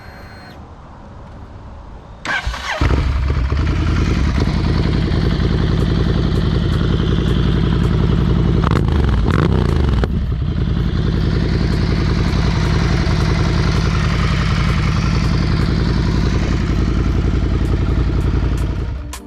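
Motorcycle engine cranked on the starter, catching about two seconds in and running loudly. It is revved once near the middle, rising then falling in pitch, then settles back to a steady run until it is cut just before the end.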